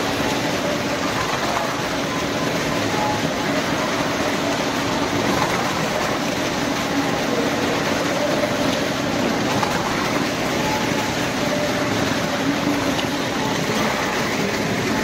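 Two small cars are driven around the vertical wooden wall of a well-of-death drum. Their engines and tyres make a steady, loud din on the wooden planks.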